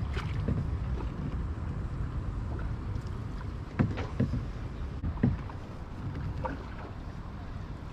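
Canoe paddle strokes in the water, a handful of short splashes, over a steady low rumble.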